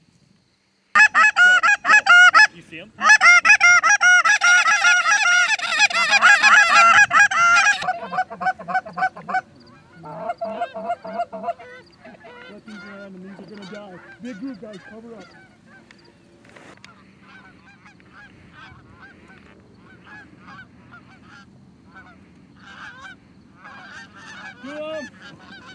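Goose honks and clucks, Canada-goose style: a loud, rapid string for several seconds starting about a second in, then quieter, scattered honking for the rest.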